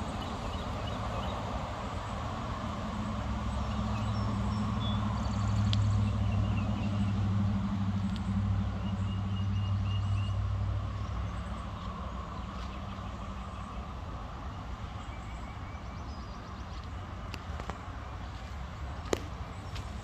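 Low hum of a passing vehicle's engine on nearby road traffic, swelling for a few seconds around the middle and then fading, with birds chirping.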